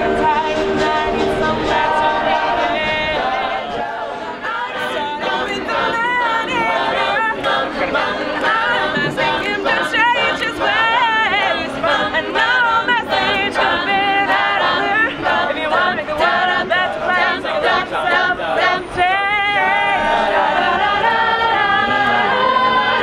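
A small high-school jazz choir singing a cappella in mixed voices, with vibrato on some of the held notes.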